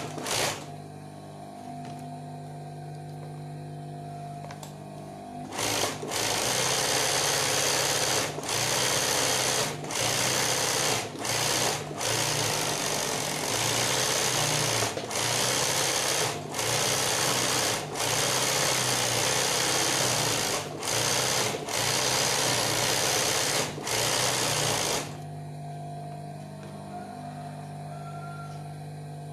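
Industrial sewing machine doing free-motion embroidery: loud, fast stitching in runs of one to two seconds with brief stops. The stitching stops for about five seconds near the start and again for the last few seconds, leaving only the steady hum of the running motor.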